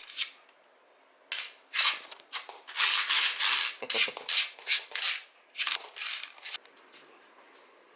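Clinking and clattering of small hard objects being handled, in a quick, irregular run of bursts starting about a second in and stopping a little over a second before the end.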